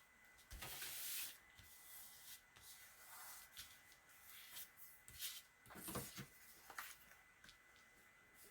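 Paper and card being handled on a tabletop: faint rustling and rubbing, with a few light taps a little past the middle.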